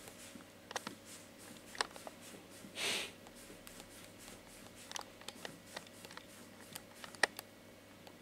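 Sparse light ticks and taps, typical of a cat's paws and claws on a laminate floor as it walks, with one short breathy rush about three seconds in.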